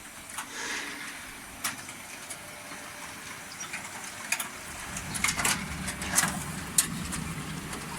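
Small continuous frying machine running, with scattered sharp clicks and knocks over a steady noise; a low hum sets in about five seconds in.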